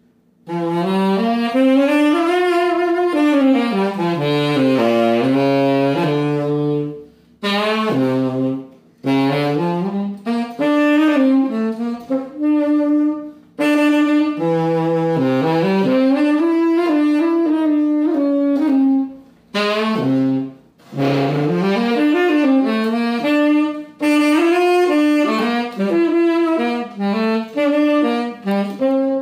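Galasso B-flat tenor saxophone, freshly repadded and regulated, played solo and unaccompanied: a melody rising and falling in phrases, with short breath pauses between them.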